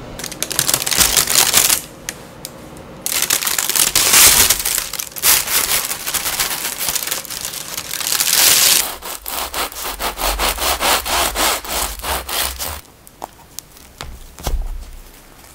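Parchment paper crinkling and rustling loudly as a crusty loaf is lifted out of a cast-iron pot, followed by a run of rapid, even scraping strokes, about four to five a second, and then a few sharp crackles as the crisp crust is broken apart by hand.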